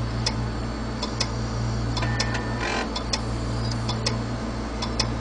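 An 80 GB Western Digital hard drive, spun up, clicking steadily at about two to three sharp clicks a second over a steady low hum. The clicking is the sign of a bad set of read/write heads.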